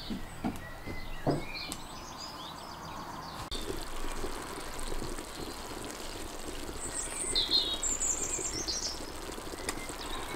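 Birds chirping, with a cluster of high chirps a little past the middle, over the soft crackle of a silver-birch wood fire and the simmering of beans in a cast-iron Dutch oven.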